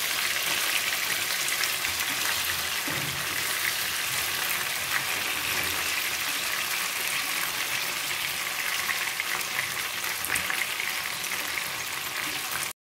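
Spice-coated fish pieces shallow-frying in hot oil on a low flame: a steady sizzle with fine crackles, cutting off suddenly near the end.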